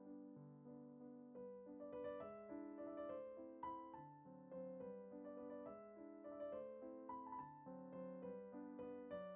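Soft background piano music, gentle chords and a simple melody.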